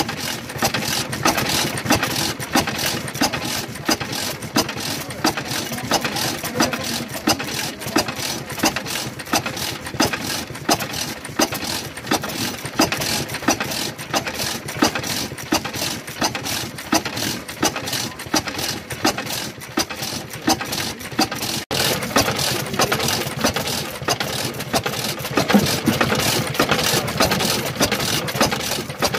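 Vintage Takahashi Seisakusho Karui-shiki stationary oil engine running, its large flywheels turning slowly, with a steady rhythm of knocks from each firing and the moving crank.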